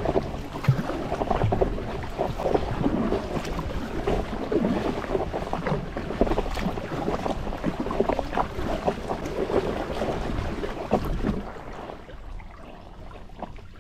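Kayak paddle strokes splashing in the water at a hard, quick pace, with wind buffeting the microphone. The strokes die away near the end.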